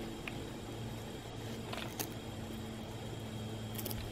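A few faint clicks and rustles of flexible twigs being handled and tied together with twine, over a steady low hum.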